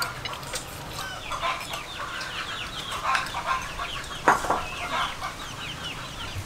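Chickens clucking, with a dense run of short, high, falling peeps, and one sharp clink about four seconds in.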